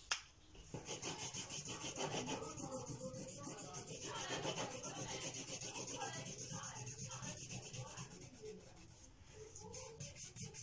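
Felt-tip marker scribbling back and forth on paper: quick, even rubbing strokes at about four or five a second, easing off briefly near the end before picking up again. A sharp click sounds at the very start.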